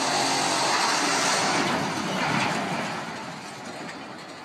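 A large steel rail-mounted gantry crane makes a continuous rumbling, rattling metal noise as its frame tips over. The noise is loud for about two seconds, then fades away.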